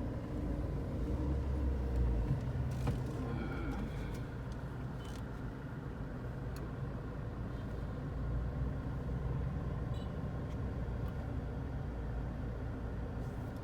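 Car engine running with a steady low rumble, heard from inside the car's cabin, with a few faint clicks.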